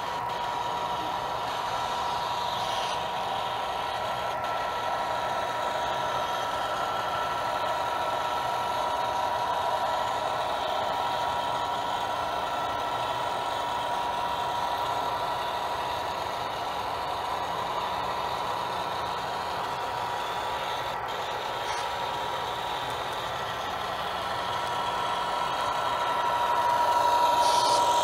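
HO scale model BNSF diesel locomotives running past with a steady engine-like drone and a constant whine. The sound swells near the end as the trailing unit draws close.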